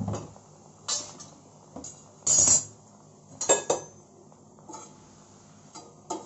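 Metal spatula knocking and scraping against a flat iron tawa while a paratha is pressed and moved on it: a string of separate sharp clinks, with a longer, louder scrape about two and a half seconds in.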